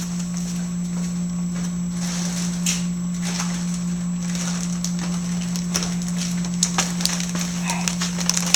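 Steady low hum of a running freezer, with faint scattered rustling and light knocks of frozen packages being handled.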